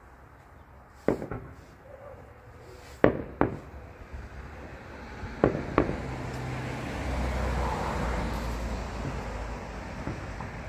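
Aerial fireworks bursting: five sharp bangs, one on its own and then two quick pairs. From about six seconds in, a low steady rumble swells and then eases off.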